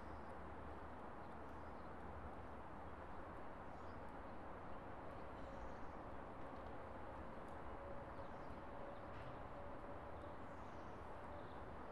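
Faint, steady outdoor background noise, with a few faint short high chirps and a faint steady hum through the middle.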